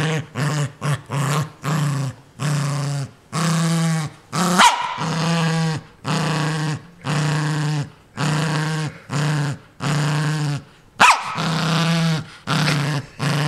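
Small dog growling in a string of short growls, one after another, while guarding a new plush toy it wants nobody near. It breaks into a sharp, loud bark about four and a half seconds in and again around eleven seconds.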